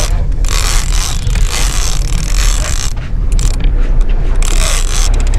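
Large conventional offshore fishing reel being cranked hard against a hooked yellowfin tuna. Its gears and incoming line give a scraping, whirring noise in bursts roughly once a second, over a steady low rumble.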